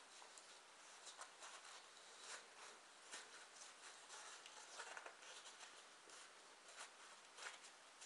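Faint rustling and scratching of corrugated cardboard strips being rolled tightly by hand, with scattered small ticks.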